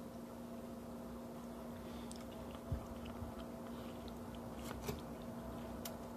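A person chewing food with small mouth clicks, over a steady low hum. A dull knock comes about two and a half seconds in, and sharper clicks come near the end.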